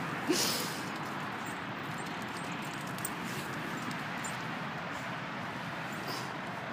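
Steady outdoor background noise, with one short sharp sound with a hiss about a third of a second in and a few faint ticks later.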